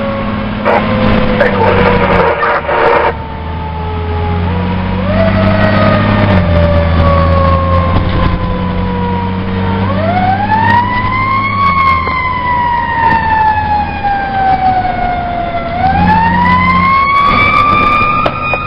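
Fire siren sounding in slow wails: its pitch sinks slowly, then about ten seconds in climbs over a couple of seconds, sinks again over about four, and climbs once more near the end. Under it a fire truck's engine runs steadily, with a brief radio voice near the start.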